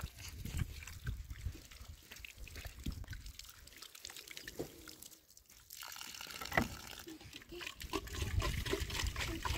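Thin stream of water trickling from the tap of a plastic water storage tank over hands being washed, then running into a small plastic jug near the end. The flow drops out briefly about halfway through.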